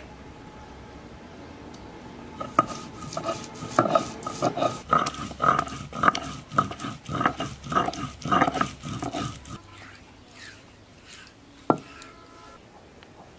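Stone roller grinding spice paste on a flat grinding stone (shil-pata), with rhythmic back-and-forth rasping strokes, about two a second, that stop after several seconds. Near the end comes a single sharp knock that rings briefly.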